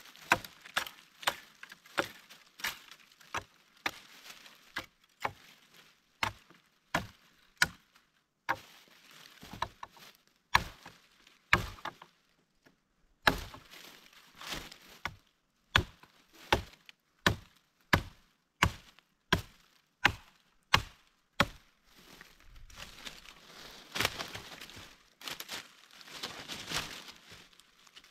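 Dry wood being chopped with a blade: a long, steady run of sharp chops, about one every two-thirds of a second, with a short pause partway through. The chopping stops a few seconds before the end, and softer rustling follows.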